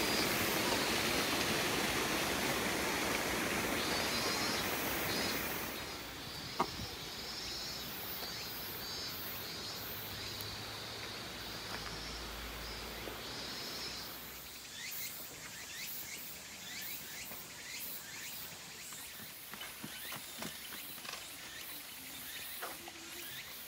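Outdoor woodland ambience: a steady rushing noise for about the first six seconds, then quieter, with scattered short chirping calls and light clicks.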